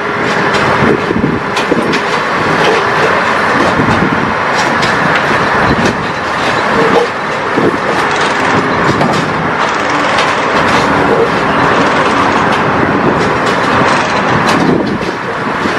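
Track-laying machine running steadily and loudly, with frequent short metallic clanks and knocks mixed in.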